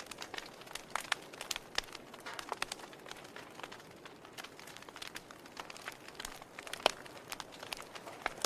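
Wood fire burning in a fireplace, crackling with irregular sharp pops over a soft steady hiss; one louder pop a little before the end.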